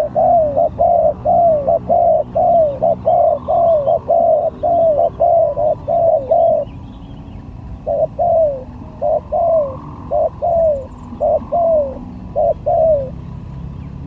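Spotted dove (tekukur) calling: a run of short, falling coo notes, about three a second, that stops near halfway and comes back after a pause of about a second, more spaced out.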